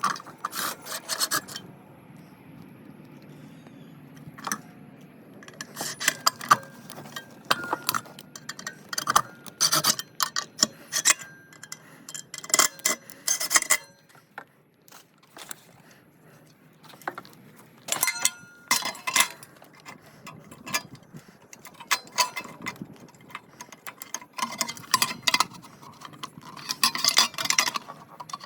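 Metal hardware and hand tools clinking, clicking and scraping in bursts of a second or two, with short pauses between, some clinks ringing briefly.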